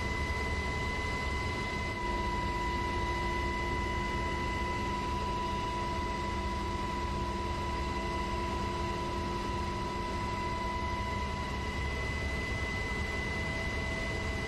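Steady aircraft engine and cabin noise: a constant low rumble with a high, even whine over it.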